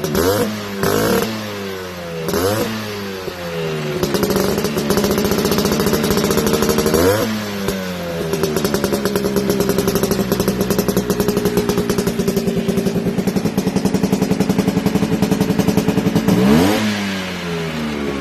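Two-stroke Vespa engine breathing through an aftermarket SRP 'shrimp' exhaust. The throttle is blipped in several quick revs, then revved once and held at a steady raised speed for several seconds, with one more blip near the end.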